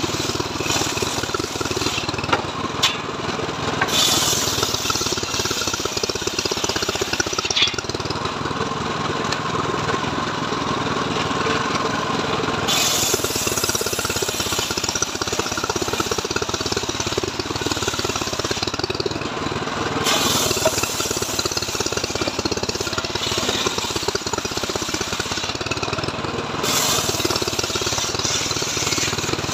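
Engine-driven homemade circular saw bench ripping a mahogany log into boards. The engine runs steadily, its note sagging and recovering under load, and the blade hisses through the wood in several long passes.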